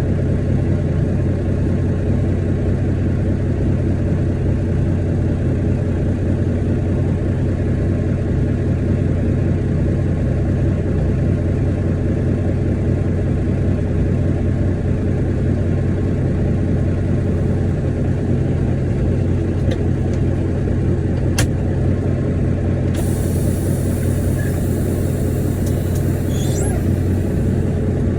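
Heavy diesel truck engine running with a steady low rumble. A sharp click comes about three-quarters of the way through, and a steady hiss starts soon after.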